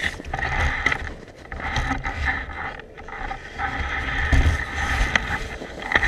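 A dog-pulled rig moving along a trail: continuous scraping and rattling with a low rumble and a few sharp knocks.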